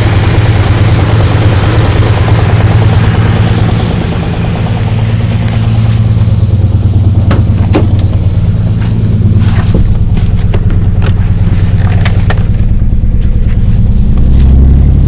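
1993 Nissan 300ZX's non-turbo 3.0-litre V6 running, an engine the owner suspects of a worn crankshaft rod bearing. Scattered sharp clicks come through in the middle, and the engine note drops lower and louder near the end.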